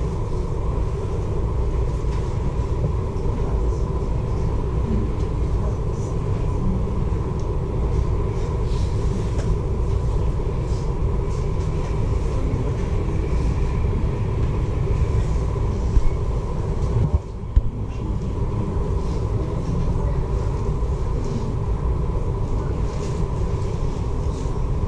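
Steady low rumble of a passenger ferry under way, with a faint steady hum over it and light background chatter. A couple of short knocks and a brief dip come about seventeen seconds in.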